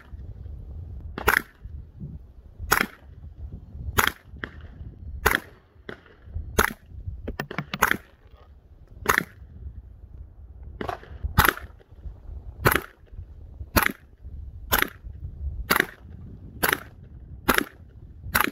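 Suppressed CZ Scorpion Evo 3 9mm carbine firing single aimed shots, about sixteen in a row. They come roughly one every second and a bit, a little faster in the second half.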